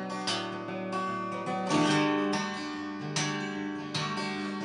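Acoustic guitar strummed in an instrumental break between sung lines, chords ringing with a fresh strum about every second.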